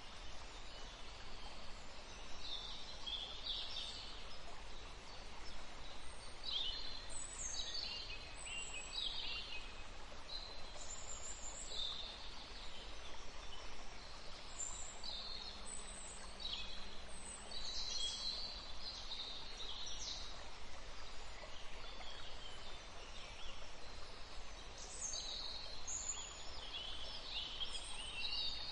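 Small birds chirping in short, high calls scattered throughout, over a steady background hiss.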